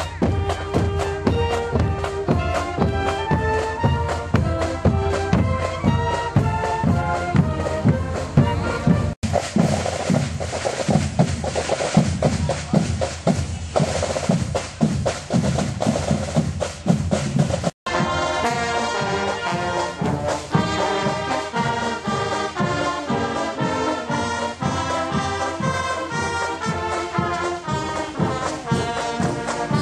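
Marching band playing on the move: saxophones, trumpets, trombones and mellophones over a bass drum beat. The sound breaks off for an instant twice, about nine and eighteen seconds in, at cuts in the recording.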